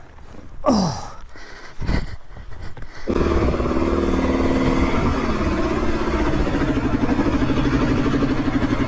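An enduro dirt bike's engine fires about three seconds in, after a few knocks and scrapes, and then runs steadily at a fast idle. This is the bike being restarted after a laydown on the trail.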